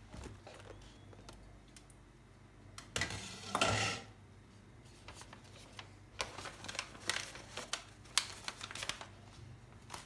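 A glass pot lid being lifted off and handled, with a dense burst about three seconds in, then paper crinkling and crackling in quick, irregular snaps as the paper sheet over a pot of cooked rice is peeled away.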